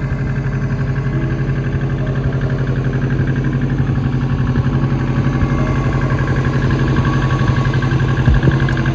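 An engine idling steadily with an even low hum and a fast regular pulse, with a couple of brief knocks near the end.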